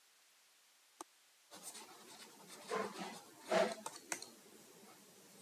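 Stylus scratching on a writing tablet as a few words are handwritten: a single tap about a second in, then a few seconds of short scratchy strokes.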